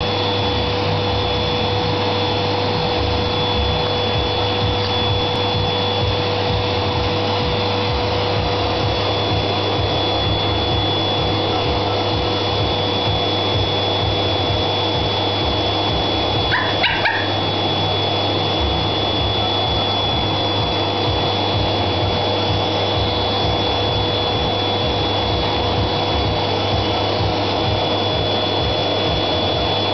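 Vacuum cleaner running steadily, a constant motor noise with a high whine. About halfway through, a dog gives a quick run of three short yips at the vacuum.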